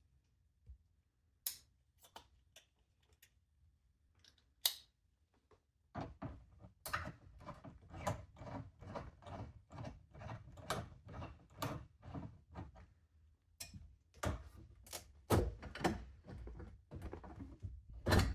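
Handling noise under a kitchen sink while a flathead screw on the dishwasher tube is worked loose: a few scattered clicks, then from about six seconds in a dense run of knocks, clicks and rattles.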